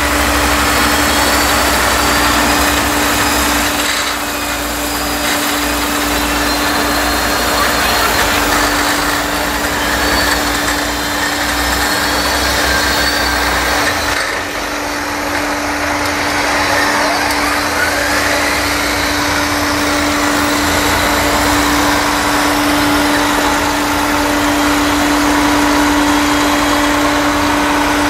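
Diesel tractor engines running steadily at a maize silage clamp as tractors drive over and pack the chopped maize, with a constant hum throughout.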